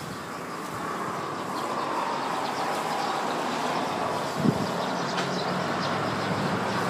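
Steady distant vehicle noise, swelling slightly over the first couple of seconds, with one brief low thump about four and a half seconds in.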